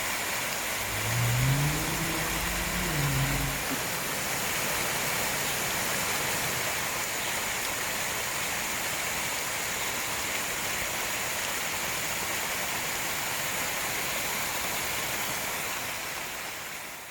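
Steady rush of rain and flowing stream water. About a second in, a motor vehicle engine revs up and back down for a few seconds over a low rumble. The water sound fades out at the end.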